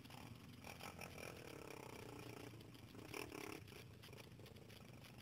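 Faint quad bike engine running low, its pitch dipping and rising briefly, with a short, slightly louder sound about three seconds in.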